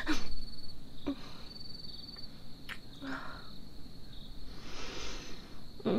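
Crickets chirping steadily in a high, pulsing trill, with several short close sounds over them, the loudest right at the start, and a breathy rush about five seconds in.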